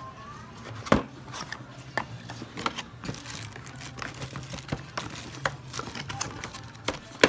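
Plastic packaging crinkling and crackling in irregular bursts as hands pull a plastic-wrapped phone battery out of its box, with sharp clicks, the loudest about a second in and near the end. A low steady hum runs underneath.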